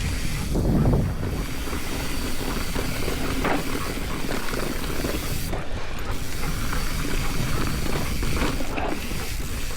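Mountain bike riding down a rocky trail: a steady rush of wind over the microphone, mixed with the rattle and knocks of the tyres and bike over the rocks.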